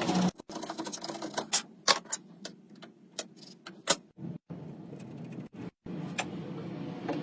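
Irregular sharp clicks and knocks over a faint low hum, the sound of woodworking handwork or tools.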